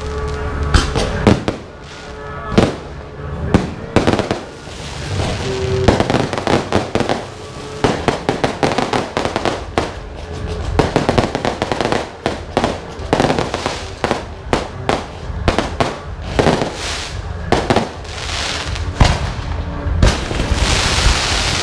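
Fireworks display: aerial shells launching and bursting in quick, irregular succession, sharp bangs mixed with crackle, thickening into a dense hissing crackle near the end.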